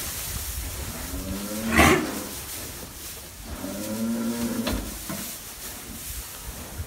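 Heifers mooing: two low, drawn-out moos, the first ending at its loudest about two seconds in, the second about four seconds in.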